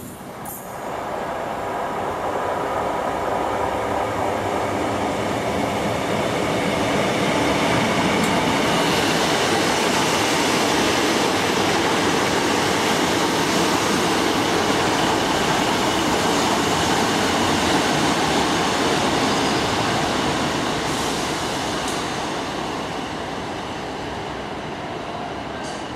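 Sprinter diesel multiple unit running past close by on the rails. The rumble of its wheels and engines builds over the first few seconds, stays loud through the middle and fades gradually near the end.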